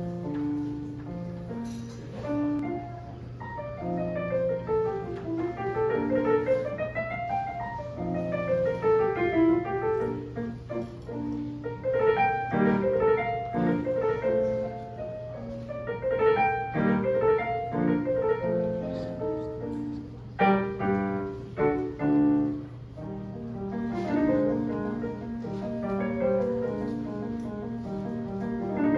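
Casio digital keyboard played with a piano sound: flowing arpeggios that rise and fall, with several chords struck together, over a steady low hum.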